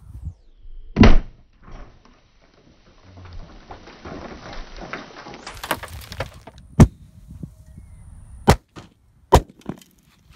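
Propane-and-oxygen gopher burrow blasts: four sharp booms from underground, one about a second in and three in quick succession near the end. Between them comes a steady hiss.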